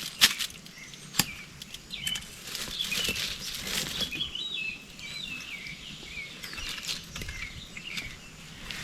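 Wild birds chirping and singing in quick, varied calls, with two sharp snaps near the start about a second apart.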